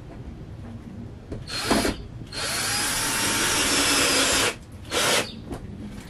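Cordless drill driving a screw into wood: a short spin about a second and a half in, a longer run of about two seconds, then another brief burst near the end.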